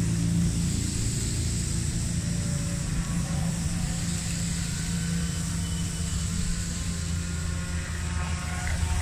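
Modified hill-climb race cars driving slowly past one after another, their engines running at low revs with a steady low drone.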